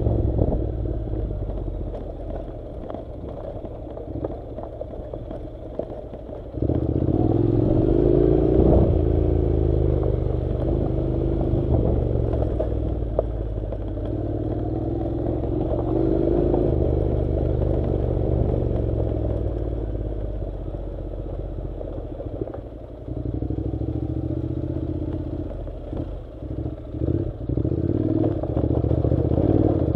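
Honda NC700's 670 cc parallel-twin engine running as the bike is ridden along a rough dirt track, with clatter from the surface. It runs light for the first few seconds, pulls louder about six seconds in with the pitch rising and falling, then comes on and off in short bursts near the end.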